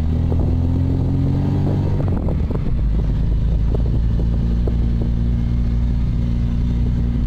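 Car engine heard from inside the cabin, labouring up a steep dirt slope. Its note climbs slightly, drops about two seconds in and then holds steady under load. Short knocks and rattles come from the car going over the rough track.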